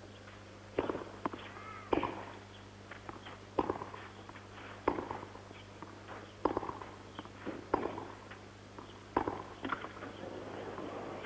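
Tennis ball hit back and forth in a baseline rally on a clay court. Sharp racket strikes come about every second and a half, with softer ball bounces between them, over a steady low hum.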